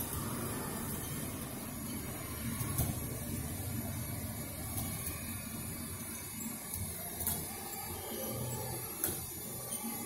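Small electric motor and gearing of a metal construction-kit model train whirring steadily as it drives the chassis along the table, with a few sharp clicks.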